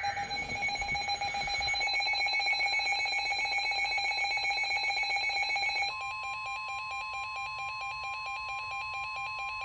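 Emergency Alert System alert tones: steady electronic tones with a fast, evenly pulsing warble. About six seconds in they change to a different steady tone that carries on with the pulsing.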